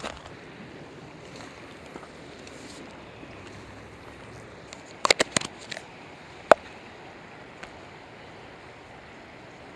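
Steady rush of a shallow river's flowing water. A little past halfway comes a quick cluster of sharp clicks, then one louder click soon after.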